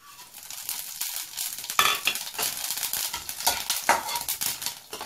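Panch phoron (whole five-spice seeds) sizzling and crackling as it hits hot mustard oil in a wok, the tempering step of the dish. The sizzle starts just after the seeds go in and is stirred with a metal spatula, with a few sharper knocks of the spatula on the pan.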